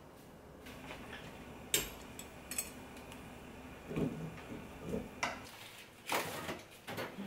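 Scattered light clicks and knocks of kitchen handling: a white folding dish-drying rack being laid over the sink, then plastic food containers being shifted, with a short cluster of louder knocks about six seconds in.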